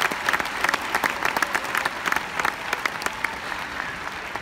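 Arena crowd applauding, many hands clapping, thinning and fading away toward the end.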